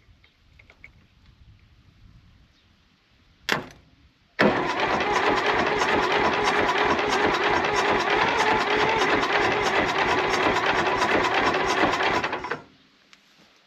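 Valmet 500 tractor's diesel engine being cranked by its starter: a brief blip, then about eight seconds of steady rhythmic cranking that stops abruptly without the engine starting, though it nearly catches.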